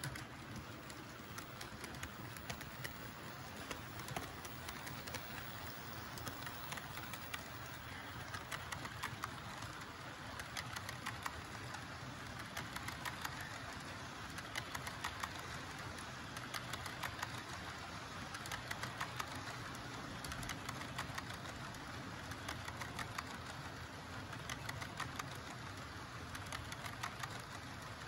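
HO scale model train rolling past: small metal wheels running and clicking steadily over the track, over a low engine-like hum.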